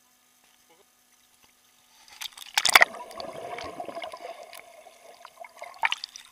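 Near silence for about two seconds, then a splash as the camera is plunged under the river water, followed by muffled underwater gurgling and bubbling, and another splash near the end as it breaks the surface again.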